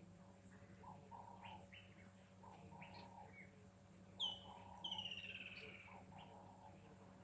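Birds calling: a short, low phrase repeats about every second and a half, and near the middle two loud, buzzy calls slide down in pitch. These two calls are the loudest sounds.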